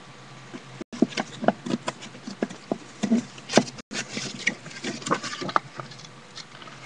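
Paper pages of an activity book being flipped and handled: an irregular run of small rustles, taps and clicks.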